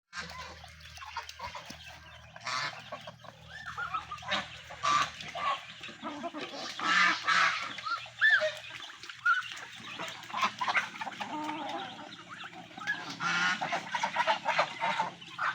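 Geese honking again and again, loud and harsh, among a mixed flock of chickens and ducks calling and clucking.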